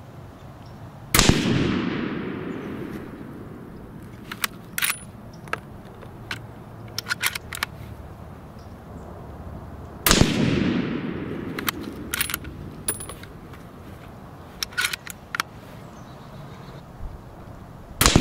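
Remington 700 ADL bolt-action rifle in .30-06 firing three shots about nine seconds apart, the last right at the end, each report followed by a long fading echo. Between shots there are short metallic clicks as the bolt is cycled.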